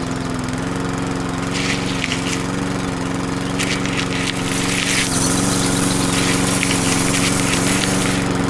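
Small DC electric motor of a miniature homemade sunflower seed huller running at a steady whine. Sunflower seeds rattle through the machine at intervals, from about a second and a half in.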